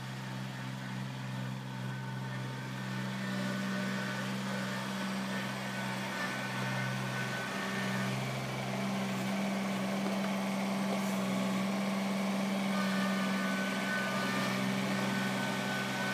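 Compact diesel-type tractor engine running steadily as the tractor drives with its front loader through snow, growing a little louder as it comes closer, with a faint higher whine at times.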